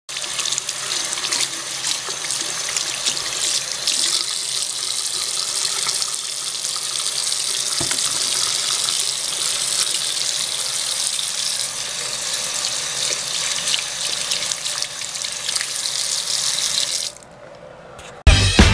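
Bathroom faucet running in a steady stream into a sink, splashing over hands being washed; the water shuts off about a second before the end.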